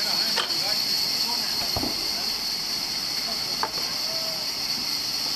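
Sawmill band saw running without cutting, a steady high hiss, with a few knocks of wooden slabs being handled.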